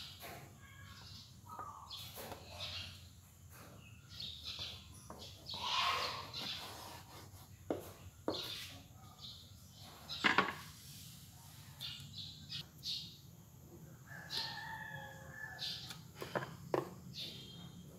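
A knife sawing through the crusts of a stack of white sandwich bread on a wooden cutting board: short rasping strokes with a few sharp knocks of the blade and bread on the board, the loudest about ten seconds in.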